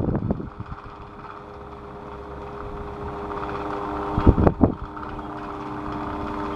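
Electric fan running with a steady motor hum, growing gradually louder, interrupted by two short knocks a little after four seconds in.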